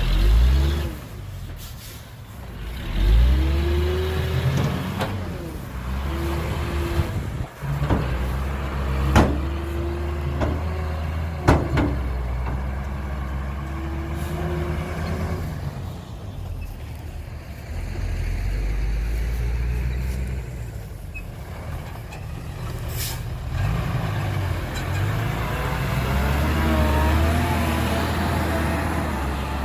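Heavy diesel engine of a truck or earthmover running and revving up and down repeatedly, with a few sharp knocks.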